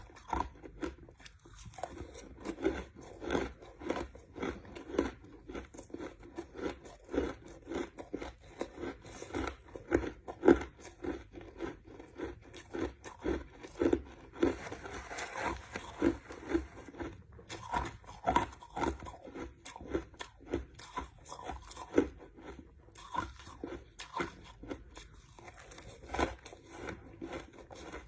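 Person chewing crushed ice close to the microphone: a continuous run of sharp crunches, a few a second, as the ice is bitten and ground between the teeth.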